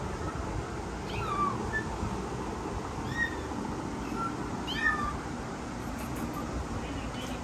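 Young kittens mewing: about five short, high-pitched mews, each falling in pitch, the last a faint one near the end.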